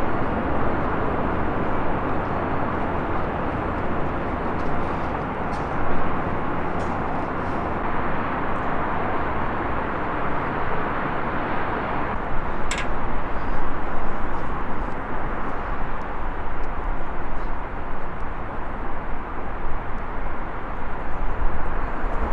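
Steady rushing outdoor noise that swells unevenly in the second half, with a few faint clicks and one sharp click about halfway through.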